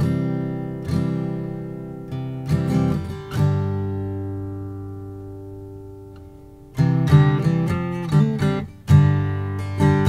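1968 Gibson Hummingbird steel-string acoustic guitar being strummed: a few chords, then one chord left to ring out and fade for about three seconds, then brisk strumming starts again about seven seconds in.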